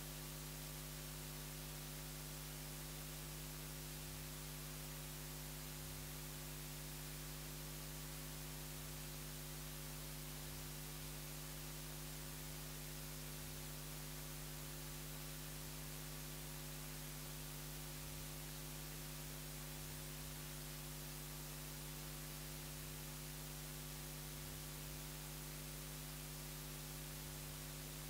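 Steady electrical hum with several overtones over a constant hiss, unchanging throughout: the noise floor of the recording or sound system during a pause.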